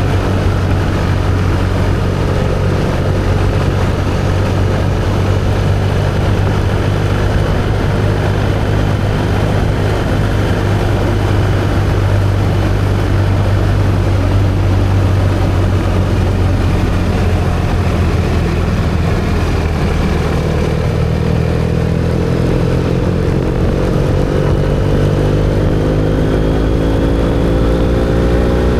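BMW R1250GSA's boxer twin with an Akrapovic slip-on exhaust, holding a steady engine speed while riding, then accelerating with a rising pitch over the last several seconds.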